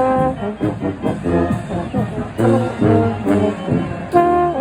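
Marching band playing, with the brass section leading a brisk passage of short chords that change every fraction of a second, punctuated by sharp hits.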